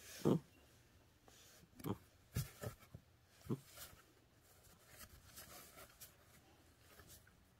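A cat scuffling in a cardboard box, its body and paws knocking and scraping against the cardboard as it grapples with a hand. A sharp knock comes about a third of a second in, then several more around two to three and a half seconds, with softer scratching after.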